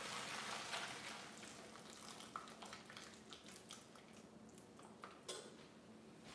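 Hot water draining from a steel pot of boiled potatoes through a mesh strainer into the sink, a faint trickle and drip that tapers off. A few light clinks of the pot.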